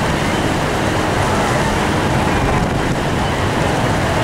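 Steady rush of a wide river's whitewater rapids just above the brink of a large waterfall.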